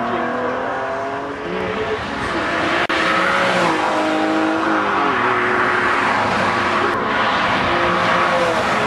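Honda NSX's V6 engine running hard through an aftermarket exhaust, the pitch climbing and then dropping in steps at gear changes a few times.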